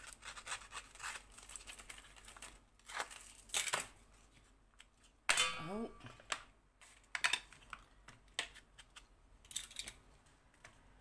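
Cardstock edges being rubbed with an ink applicator: quick, scratchy strokes on paper, with two louder strokes a few seconds in. About five seconds in comes a short, louder pitched sound that rises in pitch.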